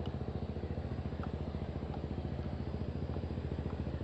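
Small boat engine running steadily, with a fast, even pulsing beat.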